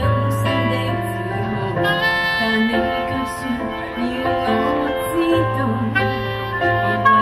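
Saxophone playing a melody over piano accompaniment: a live instrumental break in the song, with no voice singing.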